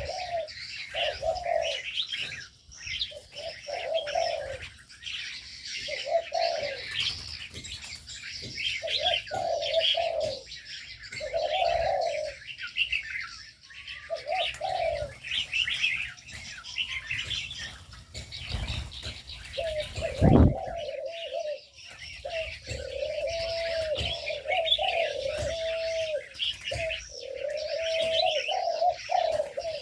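Doves, spotted doves by the video's tags, cooing in repeated phrases over a steady chatter of small birds chirping in an aviary. One loud low thump about two-thirds of the way through.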